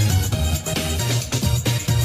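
Electronic rave dance music playing loud, with a driving regular beat over a heavy bass line.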